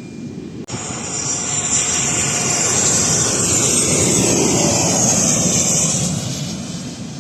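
Jet airliner passing low overhead on landing approach. The engine roar swells, peaks with a high whine and a falling pitch, then fades as it goes by. The sound begins abruptly at a cut less than a second in.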